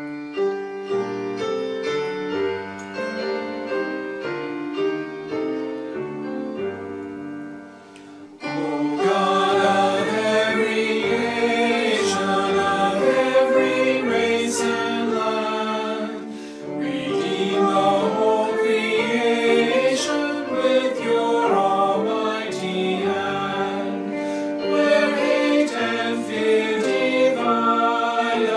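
A grand piano plays an introduction. About eight seconds in, women's and men's voices join, singing together over the piano accompaniment.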